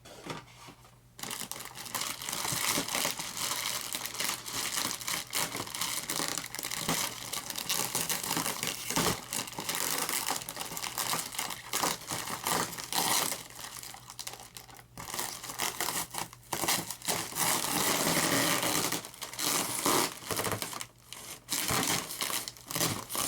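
Plastic packaging wrap crinkling and tearing as it is pulled off a boxed part, starting about a second in and going on in irregular bursts with short pauses.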